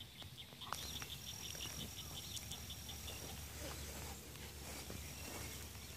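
Light rain falling on a pond, with a rapid high trill of about eight pulses a second that stops about two and a half seconds in.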